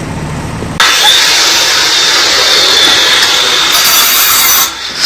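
A low machine hum, then about a second in a loud, harsh machine noise with a steady high whine starts abruptly and runs for nearly four seconds before dropping away.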